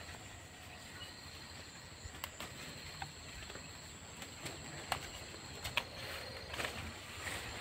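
Quiet rural field ambience: a steady high drone of insects, with a few faint, short clicks and rustles scattered through it from hands picking things up.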